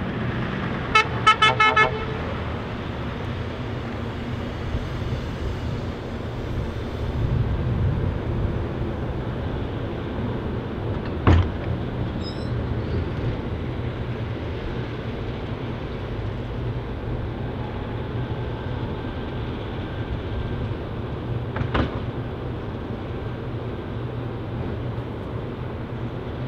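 Scania R580 truck's V8 engine running steadily, with a quick series of about five short horn toots about a second in. Two sharp bangs stand out, one about halfway through and one near the end.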